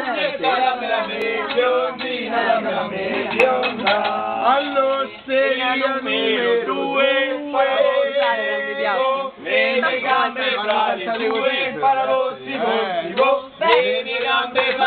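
A group of people singing together, men's voices to the fore, in a loose, untrained chorus with some talking mixed in.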